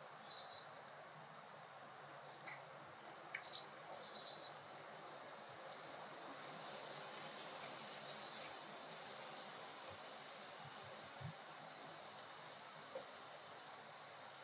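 Small birds chirping faintly over a quiet outdoor hiss: short, very high-pitched chirps scattered through, the loudest about six seconds in.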